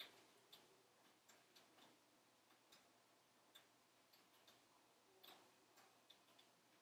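Logs burning in a wood-burning stove: faint, irregular crackles and pops from the fire.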